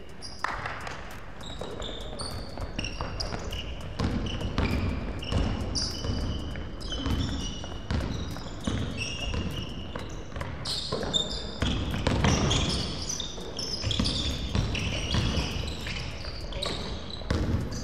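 Basketball being dribbled and bounced on a hardwood gym court, with many short, high sneaker squeaks as players cut and stop.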